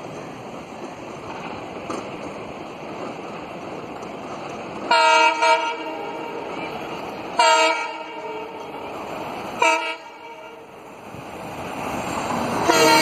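WDM3D diesel-electric locomotive sounding its air horn on approach: three short blasts a couple of seconds apart, then a loud, long blast near the end, over the diesel engine and train noise that grow louder as it nears and passes close.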